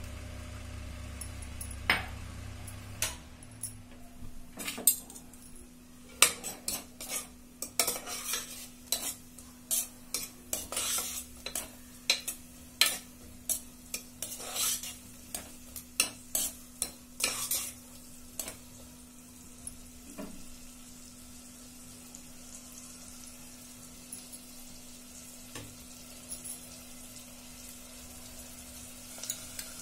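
Chopped onions frying in butter in a pressure cooker pot, while a steel spoon stirs them with many quick clicks and scrapes against the pot during the first half. After that the stirring stops and only a soft sizzle is left.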